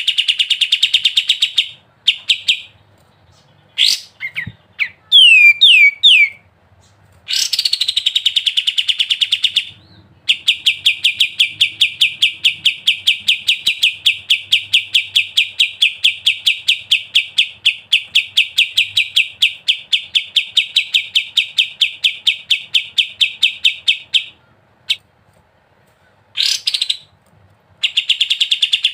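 Kapas tembak songbird singing 'ngebren': trills of rapid, evenly repeated high notes, with a few quick sweeping notes early on and one long unbroken trill of about fourteen seconds starting around ten seconds in.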